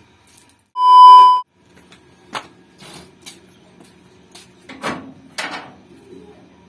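A loud, steady electronic beep about two-thirds of a second long, about a second in. It is followed by a few faint knocks and scrapes as a corrugated sheet-metal gate is pushed open, over a faint steady hum.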